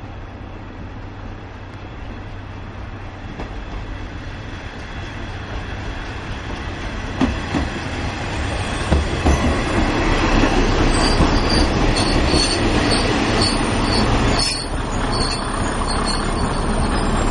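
KiHa 20 diesel railcar pulling into a station: the rumble of its diesel engine and wheels grows steadily louder as it comes near, with a few sharp knocks of the wheels over rail joints. In the second half a high-pitched squeal sets in as it brakes alongside the platform.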